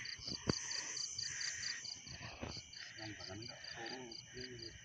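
Crickets chirping steadily in a high, even pulse of about four chirps a second, with faint voices talking a few seconds in.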